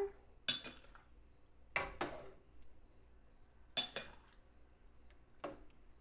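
Metal ladle clinking against a steel cooking pot and a metal canning funnel while hot relish is scooped into a jar: four sharp clinks about a second and a half apart, each ringing briefly.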